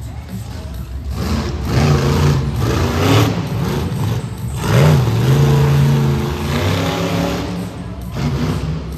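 Monster truck engine revving in repeated bursts as the truck drives and turns on the dirt, loudest about five seconds in, where the pitch dips and then climbs again.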